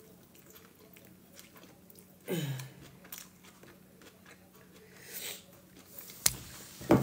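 A person chewing a mouthful of fresh salad close to the microphone, with soft crunches of raw leaves and vegetables. About two seconds in comes a short falling hum of the voice, and near the end a single sharp click.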